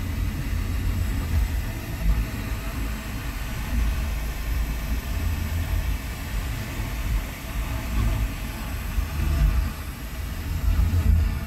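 Low, uneven rumble of a car's engine and running gear heard from inside the cabin.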